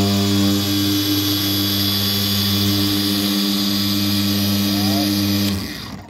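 Ryobi cordless dual-action polisher running steadily under load with a hum and whir. About five and a half seconds in it is switched off and winds down.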